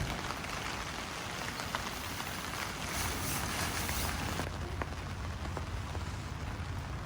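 Steady rain falling with scattered drop ticks, under a low wind rumble on the microphone; the high hiss of the rain drops off suddenly about four and a half seconds in.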